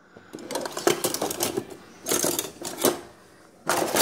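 Metal kitchen utensils clinking and rattling against each other in a drawer as it is rummaged through, in several spells of clatter separated by short pauses.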